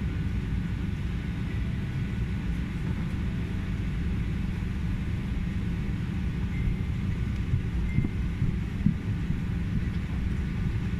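Steady low rumble inside the cabin of an Embraer E-190 airliner as it starts its pushback, with a faint steady whine. Two light bumps come about eight and nine seconds in.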